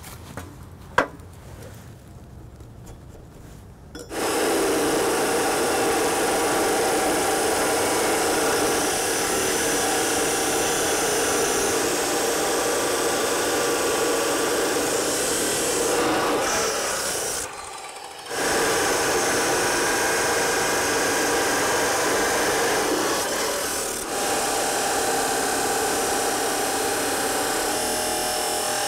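Metal-cutting chop saw cutting through a DOM steel tube. It starts about four seconds in with a steady, loud cutting sound, breaks off briefly a little past halfway, then cuts on.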